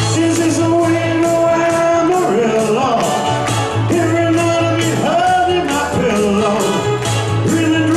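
A male crooner singing live into a microphone over an upbeat band backing with a steady drum beat, the melody held in long notes that slide between pitches.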